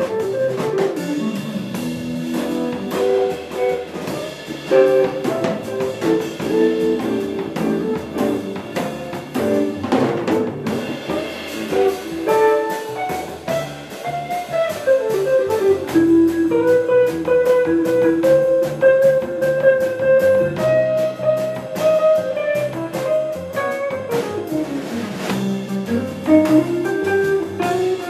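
Archtop hollow-body electric guitar played solo through an amplifier: a melody over chords, with held notes and a few sliding notes that fall and rise in pitch.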